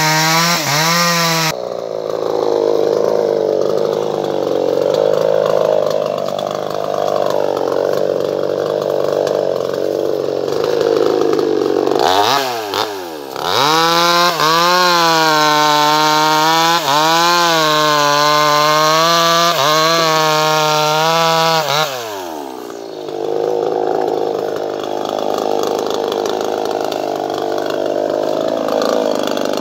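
Chainsaw engine running. About twelve seconds in it revs up and holds high revs with repeated swells, then falls back to a lower, rougher running about ten seconds later.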